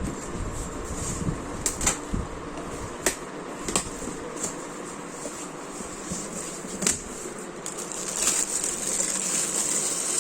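A parcel being unpacked by hand: packaging crinkling and rustling, with a few sharp clicks or taps, and a louder stretch of rustling near the end.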